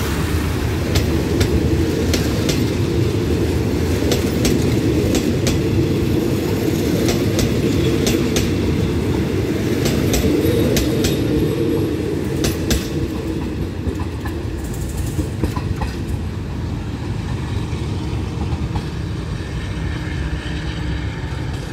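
Passenger coaches of a train rolling past on the rails: a steady low rumble with wheels clicking over the rail joints. After about 13 seconds the clicks thin out and the sound eases as the last car moves away.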